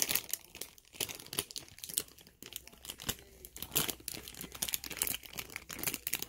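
A thin plastic packaging bag crinkling and crumpling as it is pulled and handled, in quick irregular crackles.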